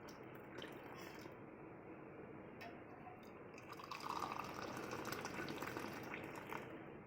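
Hot kadha (herbal decoction) being poured from a pan into a glass: a faint trickle of liquid, louder for about two seconds from around four seconds in.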